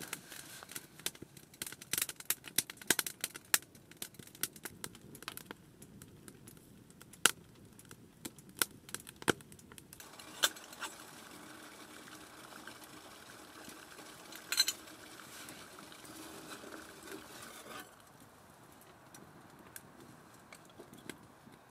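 A quick run of small clicks and clinks from objects being handled for about ten seconds, then a steady soft hiss with a faint hum for about eight seconds, broken once by a short cluster of clinks, before it quietens.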